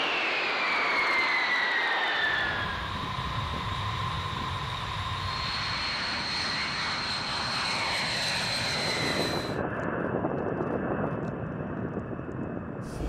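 A Boeing B-52 Stratofortress's eight jet engines running at takeoff power as it climbs out and passes by: a heavy, noisy jet roar with a high engine whine that slides down in pitch early on. About two-thirds of the way through the whine drops away, leaving a duller rumble.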